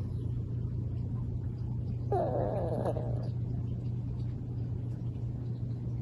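Small dog snoring in its sleep. About two seconds in comes one whistling snore that slides down in pitch over about a second, over a steady low hum.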